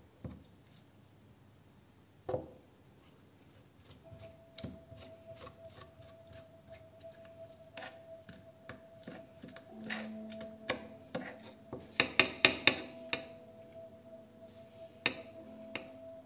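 Kitchen knife tapping and scraping on a wooden cutting board while a salted herring is gutted, with scattered clicks and a quick run of louder knocks about twelve seconds in.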